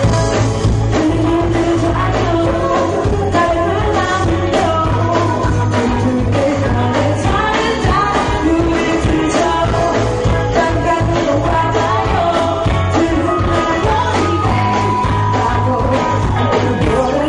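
Recorded pop-rock song playing, a singer's voice over a steady beat and bass line.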